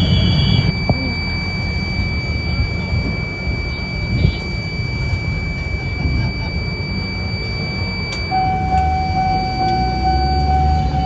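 Railway level-crossing control panel buzzer giving a steady high electronic tone, joined about eight seconds in by a second, lower steady tone, as the crossing is being closed for an approaching train. Engine and traffic rumble underneath.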